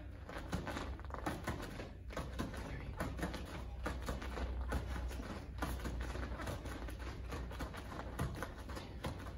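Bare feet tapping and thudding on foam floor mats in a quick footwork drill, two steps and a knee lift repeated over and over: a fast, irregular run of soft taps.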